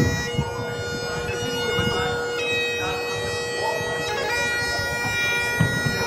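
Great Highland bagpipe playing a slow piobaireachd: steady drones under long-held chanter notes that change only every couple of seconds, with a quick grace-note movement a little after four seconds in.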